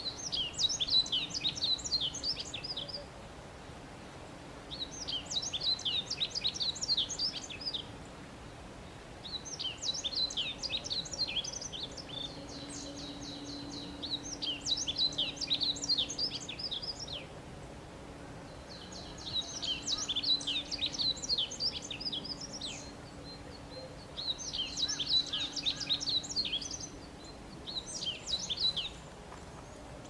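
A songbird singing in repeated phrases of rapid, high chirps, each phrase lasting about two to four seconds, with short pauses between them. A faint low hum and steady background noise run underneath.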